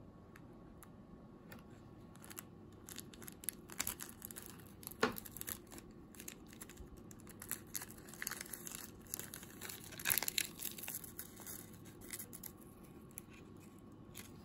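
Foil-laminate packet of toasted nori crinkling in the hands and being torn open, with sharp crackles throughout and the loudest tears about five and ten seconds in.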